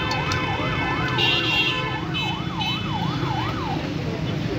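A siren wailing quickly up and down, about three rises and falls a second, over a steady background of street noise; it stops near the end.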